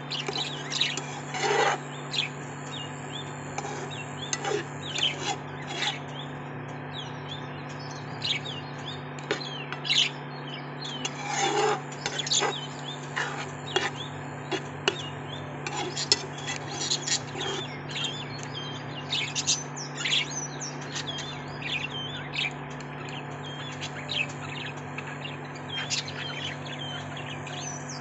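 Birds chirping and tweeting in quick, irregular calls, over a steady low hum.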